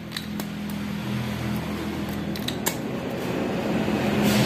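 A steady mechanical hum that slowly grows louder, with a few light metallic clicks as a steel exhaust silencer is handled. A louder rush of noise starts right at the end.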